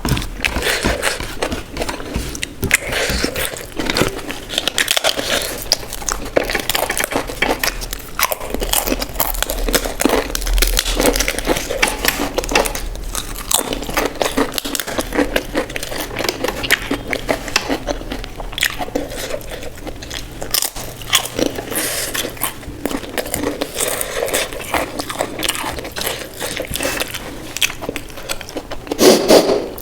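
Close-up eating sounds: a person biting and chewing crisp food, with many quick crunches and wet chewing noises throughout.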